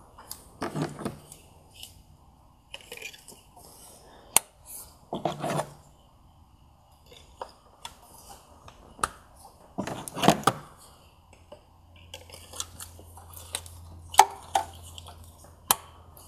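New ignition coils being pushed down into the cylinder head of a VW 2.5-litre five-cylinder engine by hand: scattered sharp plastic clicks as they seat, with short clattering handling noises in between.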